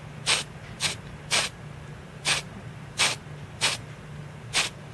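Aerosol paint spray hissing in seven short bursts, roughly half a second to a second apart, as thin coats of paint are dusted on.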